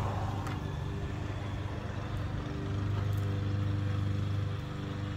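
Electric power awning motor on a travel trailer running as the awning extends: a steady hum that grows louder for about two seconds in the middle.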